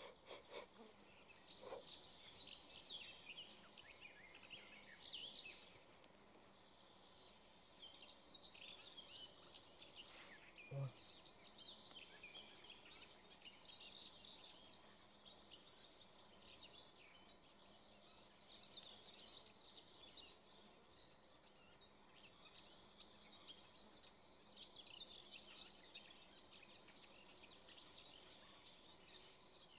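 Faint outdoor birdsong: many short chirps and twitters from small birds over a low hush, with one soft click about ten seconds in.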